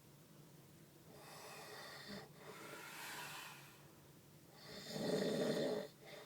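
A man snoring in his sleep, recorded on a phone: softer breaths through the first few seconds, then one loud snore near the end.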